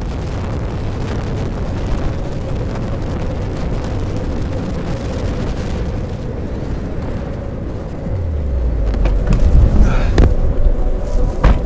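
Strong gusty wind buffeting the microphone, a dense low rumble that grows heavier toward the end, with a couple of sharp knocks near the end.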